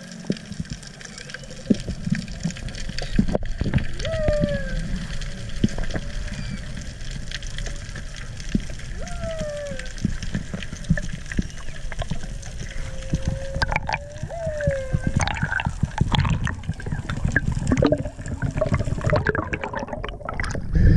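Humpback whale song heard underwater: short downward-sweeping moans repeating about every five seconds, with fainter higher calls alongside, over water hiss and the knocks of the camera being handled. In the last few seconds there is loud splashing and bubbling as the camera rises to the surface.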